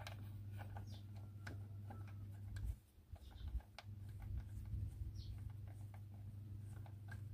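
Faint, irregular ticking of a ratchet wrench working a 13 mm alternator bolt loose, over a steady low hum that drops out for about a second near three seconds in.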